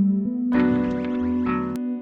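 Instrumental music: sustained chords with plucked strings, freshly struck about half a second in and again near the end.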